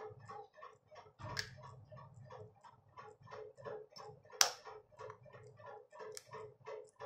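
An egg shell cracked with one sharp tap of a knife blade about four seconds in, after a softer knock about a second in. Under it a steady fast ticking runs at about four ticks a second over a low hum.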